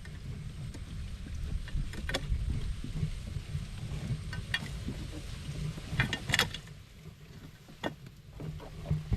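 Rustling and knocking as a crab hunter works at a hole to get out a crab that has run inside, with several sharp knocks over a low rumble of handling and wind noise on the microphone.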